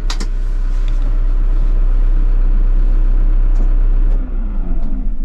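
Low, steady rumble of a Caterpillar wheeled excavator's engine running, heard from inside the cab, with a few clicks near the start. About four seconds in it drops in level and falls briefly in pitch.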